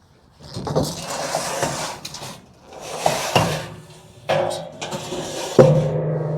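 Steel building rafters being handled: scraping and shuffling, then two sharp metal clanks a little over a second apart, the second one ringing on.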